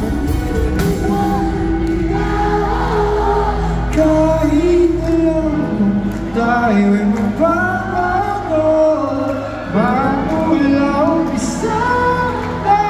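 A live pop band with singing plays through the arena's sound system, heard from far back in the audience. About halfway through, the deep bass drops away and the voices carry on over lighter backing.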